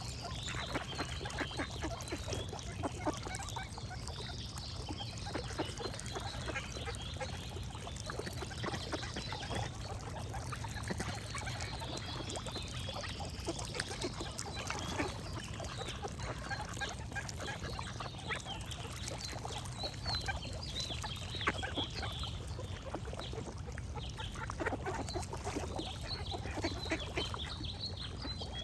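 Ducks quacking and geese honking, many short calls overlapping without pause, with birds singing in brief high notes every few seconds and a steady low hum underneath.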